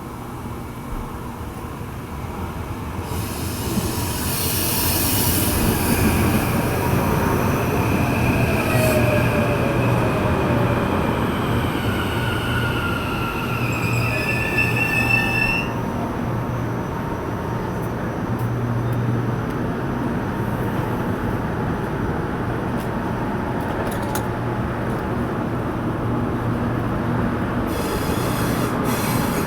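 A train running past close by. Its wheels squeal on the rails in several high tones that slide up and down, loudest from about three to fifteen seconds in and cutting off sharply, then the wheels run on with a steady rolling rumble.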